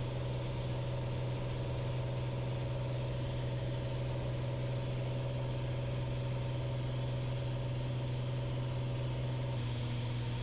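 Piper Cherokee 235's six-cylinder Lycoming engine and propeller running steadily in the climb, heard inside the cabin as an even low drone. The tone shifts slightly near the end.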